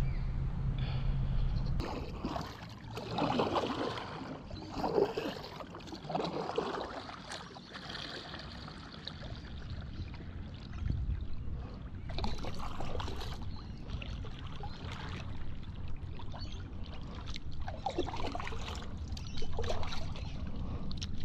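River water trickling and splashing around a moving kayak, in irregular surges.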